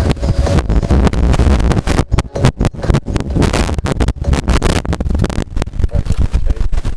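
Sanyo boombox playing a cassette, heard through a microphone with a dying battery. The sound is loud and badly distorted, with a heavy bass rumble and rapid crackling dropouts that chop it up.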